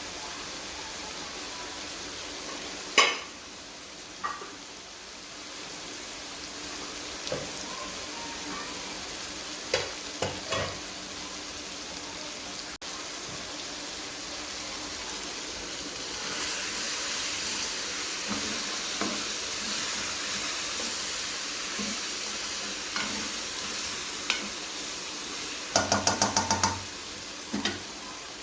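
Cauliflower and chicken sizzling as they fry in a pan, with a steady hiss that grows louder about halfway through. A spoon stirs and scrapes, knocking sharply against the pan a few times, then taps the rim about six times in quick succession near the end.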